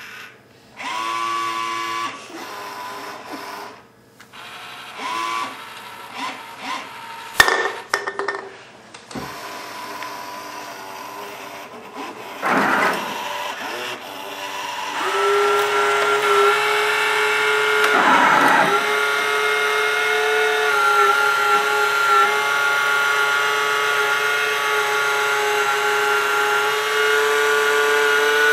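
Small electric gear motors of an Omnibot 2000 robot whirring as it moves its arms and drives. The whine starts and stops in short bursts through the first half, with a sharp click about seven seconds in. From about halfway on it runs as one steady whine.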